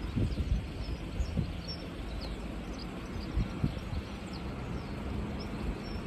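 Wind rumbling on the microphone in low gusts, with small birds chirping faintly now and then.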